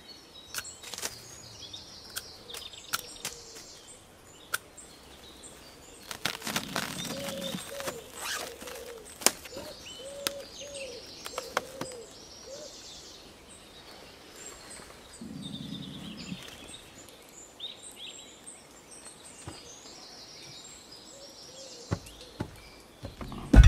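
Woodland birds singing, over scattered light knocks and clicks and brief rustling as plastic wrap film and wooden poles are handled.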